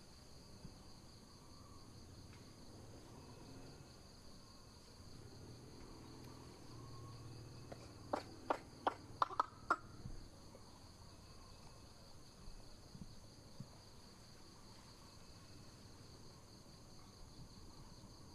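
Steady, high-pitched insect drone filling the background. About eight seconds in, a quick run of about six sharp clicks over two seconds stands out as the loudest sound.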